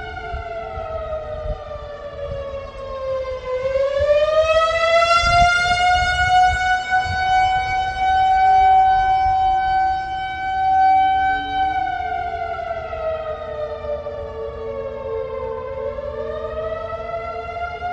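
Warning siren wailing slowly, sounded as the alarm for an earthquake mock drill. Its pitch falls over the first few seconds, climbs back, holds steady for several seconds, then falls again and starts rising near the end.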